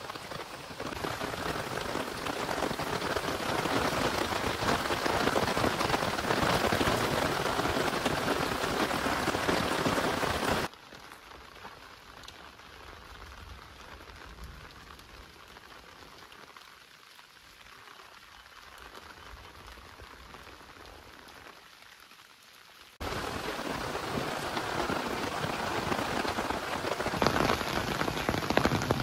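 Steady rain falling. The rain sound cuts abruptly to a much quieter level for about twelve seconds in the middle, then comes back just as loud.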